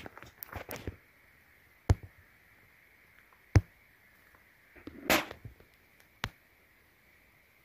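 A handful of sharp, separate knocks on a rocky trail at irregular gaps of a second or more, typical of a hiker's footsteps, over a faint steady high hiss.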